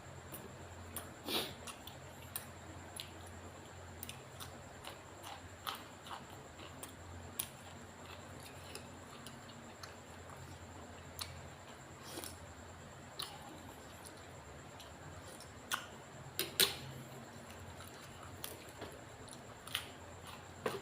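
Scattered light clicks and taps at irregular intervals over a faint steady hum, with louder knocks about a second in and again near the end.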